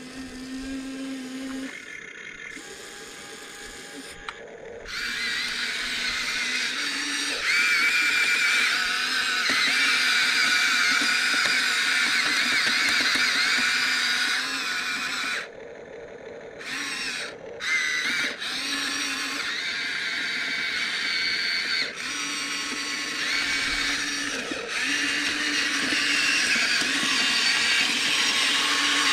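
Electric motors and gearboxes of a Huina 1593 RC model excavator whining as it works, with the pitch shifting as the controls change. The whine gets louder about five seconds in and stops briefly a few times in the middle.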